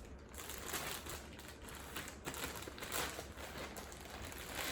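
Packaging being handled and unwrapped during an unboxing, crinkling and rustling in repeated bursts.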